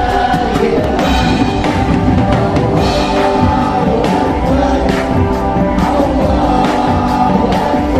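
Live band performing an Islamic religious song: a lead voice with group vocals singing over guitar and percussion that keeps a steady beat.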